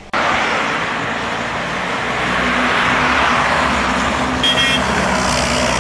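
Engine of an open-top military jeep running steadily as it drives along, with road noise; it starts suddenly just after the beginning.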